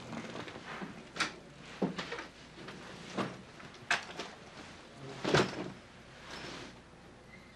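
Bags and a suitcase being handled while packing: a series of about six separate knocks and clatters with soft rustling between them, the loudest about five seconds in.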